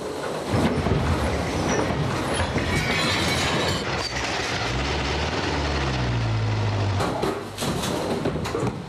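Tractor engine pulling away hard under load, mixed with a loud scraping, rattling rush as a rope drags a large rug out from under furniture and across the floors. There are several sharp knocks near the end.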